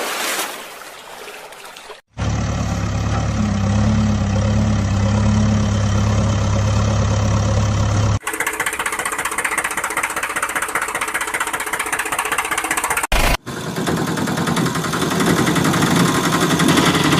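Engine running and idling sounds in several stretches that change abruptly at cuts about two, eight and thirteen seconds in. The stretch from about two to eight seconds has a steady low hum.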